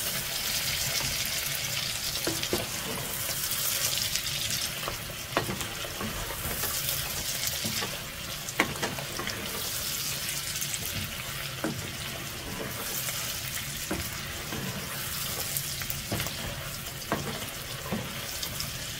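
Meatballs, peas, carrots and bell peppers sizzling in oil in a pot while being stirred with a wooden spoon, which knocks against the pot now and then with short clicks.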